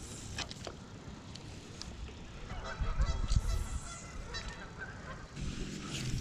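Goose honking, a quick run of calls in the middle lasting about two seconds, with low rumbling on the microphone at the same time.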